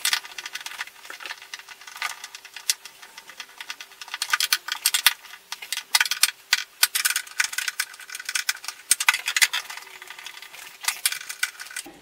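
Screwdriver tightening screws into a plastic refrigerator evaporator cover: a long run of quick, irregular clicks and scrapes.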